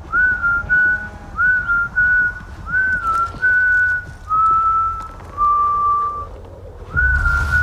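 A person whistling a slow tune in long held notes, each sliding up into pitch, stepping lower toward a pause about six seconds in and starting again near the end, over a steady low rumble.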